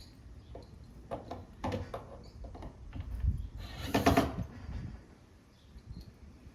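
Short knocks and clatters of wood and tools being handled, with a louder scraping squeal about four seconds in.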